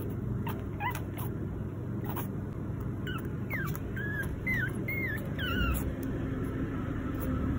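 Newborn Pomeranian puppy whimpering: short high-pitched cries, one about a second in, then a quick run of about six a couple of seconds later.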